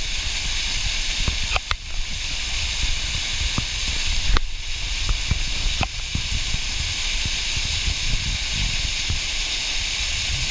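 Steady hiss of several thin waterfall streams splashing into a pool, with a low rumble underneath and a few sharp clicks.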